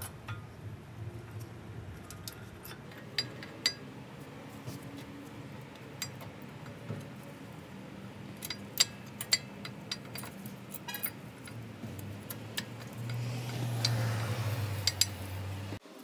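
Brake pads' steel backing plates and spring clips clicking and clinking against the front caliper bracket as new pads are seated by hand, in scattered, irregular clicks. A steady low hum runs underneath, with a louder stretch of noise near the end.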